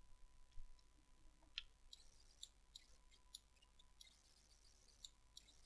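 Near silence with faint, scattered clicks from a computer mouse and keyboard, irregularly spaced.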